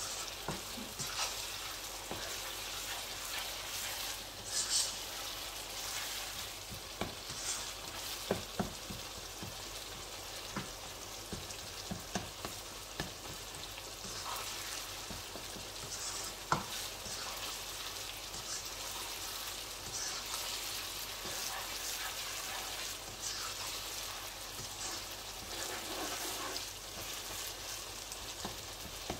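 Tomato-and-spice masala sizzling in oil in a wok, stirred with a spatula: a steady frying hiss with frequent short scrapes and taps of the spatula against the pan.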